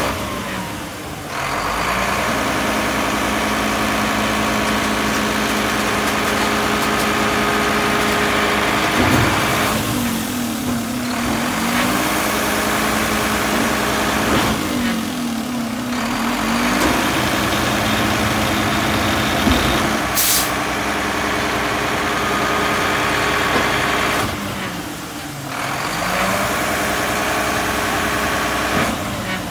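McNeilus MSL garbage truck's diesel engine running at raised revs to drive the packer hydraulics. It drops back and revs up again several times as the packer cycles on the bags loaded into the hopper, and there is a brief high hiss of air about twenty seconds in.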